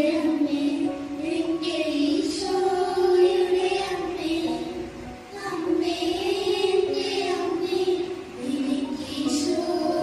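A group of children singing a hymn together in slow phrases of held notes, with a brief break about halfway.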